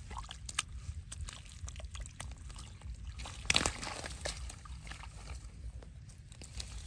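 Water sloshing and splashing in a string of small splashes, with one louder splash about three and a half seconds in.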